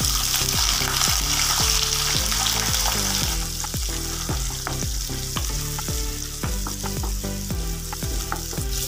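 Sliced onion frying in hot oil with cumin and fennel seeds, sizzling hardest as it goes in and easing after about three seconds while it is stirred with a wooden spatula. Background music runs underneath.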